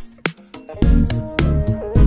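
Background music with a steady beat, bass and sustained instrumental notes.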